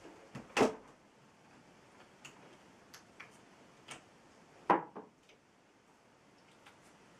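Knocks and clicks of a laptop being handled and set up on a wooden desk, with two louder knocks about half a second in and just under five seconds in, and lighter ticks in between.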